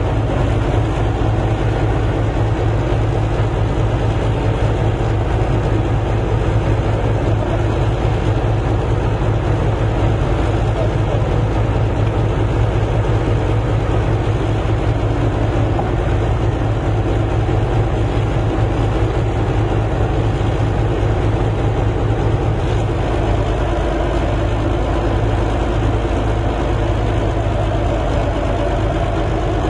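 A large engine running steadily with a low, even drone.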